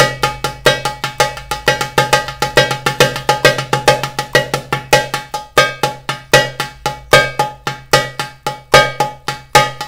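Darbuka (goblet drum) played with the fingertips near the rim: a steady run of quick, sharp tek strokes, about six a second, counted in groups of three. The accent moves between the fingers, so some strokes stand out louder than the rest.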